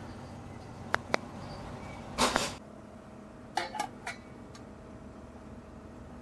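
Light clicks and clinks of a metal cookpot and its folding wire handle being handled, with a brief louder scuffle about two seconds in.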